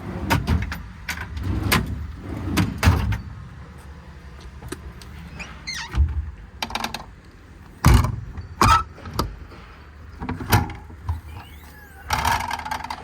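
Knocks and clunks from metal service-truck body compartment doors and drawers being opened and shut: a quick run of them in the first three seconds, then single knocks every second or two.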